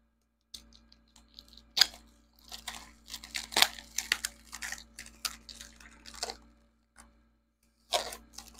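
Parcel packaging being torn open and crinkled by hand: a run of irregular sharp crackles and rustles, a short pause, then another burst near the end.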